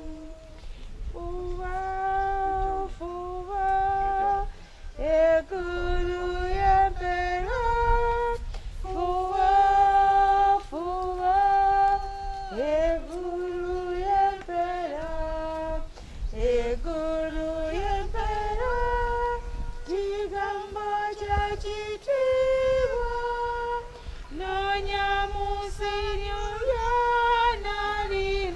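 A woman singing a slow hymn alone, a single voice holding long notes with no instruments, over a low rumble.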